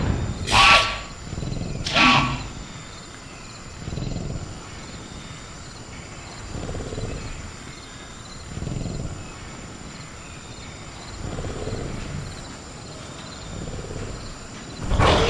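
Sound-designed velociraptor calls: two loud, shrill calls in the first couple of seconds, then a string of lower, quieter growls about every two to three seconds, and a loud call at the very end. A steady high cricket drone runs underneath.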